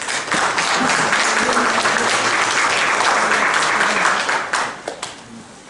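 Audience applauding steadily, then dying away about four and a half seconds in.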